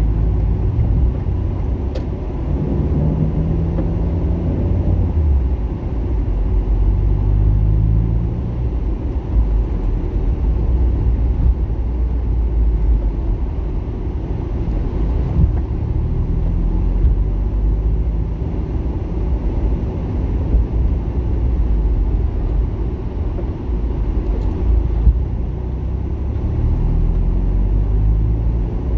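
The engine and tyres of a vehicle driving along a town street: a steady low rumble, with the engine's hum rising above it several times as it pulls away.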